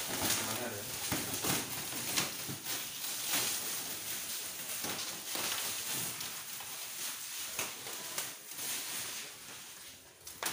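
Clear plastic stretch wrap crinkling and rustling in dense small crackles as it is pulled off a large-format printer's housing, dying down shortly before the end.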